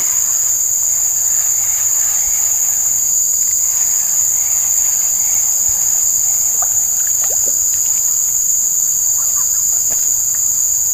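Continuous shrill insect chorus from the riverside forest, a steady high-pitched drone that does not let up, with a few faint short chirps mixed in.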